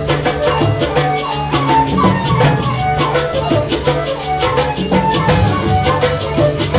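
Background music with a quick, steady percussion beat and a melody.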